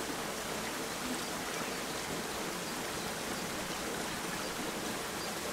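Running water of a small stream, a steady even rush.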